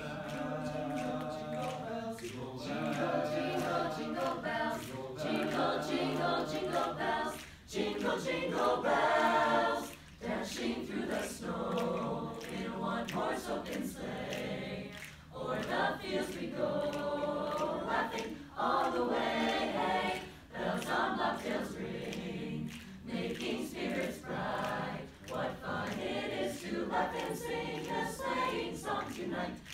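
Mixed high-school a cappella choir of male and female voices singing in harmony without instruments, in phrases with brief pauses between them.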